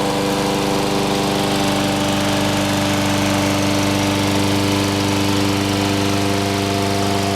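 John Deere 14ST push mower's 5 hp Kawasaki single-cylinder engine running at a steady, even speed just after starting on the first pull, its first run since a carburetor cleaning.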